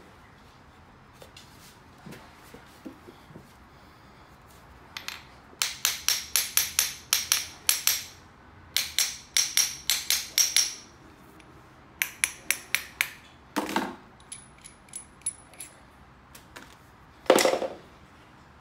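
Copper-headed mallet tapping a stainless-steel pellet mould block to knock the two halves apart: three quick runs of sharp, ringing metal-on-metal taps at about four a second. Near the end comes one heavier, duller knock.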